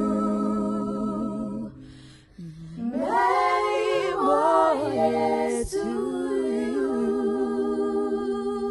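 Women singing a slow song in long held notes, with a short break for breath about two seconds in before the voices rise into a new held note with vibrato.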